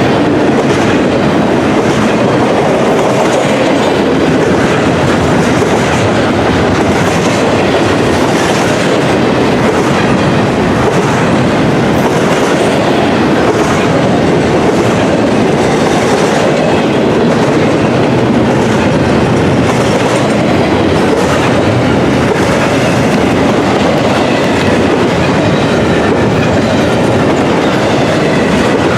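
Intermodal container freight train rolling past, a loud steady rumble of steel wheels on rail with repeated clicking as the wheels cross rail joints.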